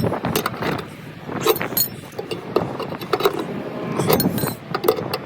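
Metallic clinks and rattles of a scissor jack being cranked with its handle to raise the car, in a rapid string of short sharp clicks with a few brief squeaks.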